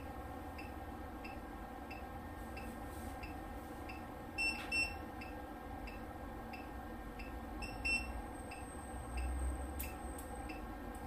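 PONOVO PCT200i CT test set running its automatic test: soft regular ticks about one and a half per second over a steady hum, two short beeps about four and a half seconds in and one more near eight seconds, with a faint high whine after it.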